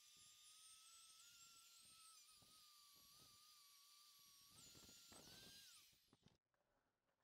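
Dremel rotary tool running at high speed with a steady high whine that wavers slightly under load, as its abrasive head polishes the engine's inlet manifold. Its pitch rises a little, then it is switched off and winds down about six seconds in.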